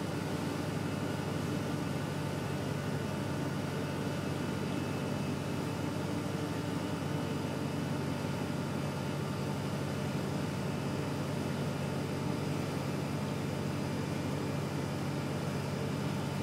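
Towboat's diesel engines running steadily under way, heard from the wheelhouse: an unchanging low drone with fainter steady tones above it.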